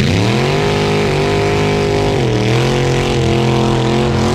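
Hot-rod truck engine revving as the truck pulls away. The pitch climbs over the first second and holds, drops about two seconds in, then holds steady again.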